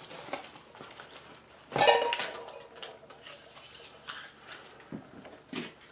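Gear being handled out of a box: a sharp metallic clank with a short ring about two seconds in, then rustling and small knocks.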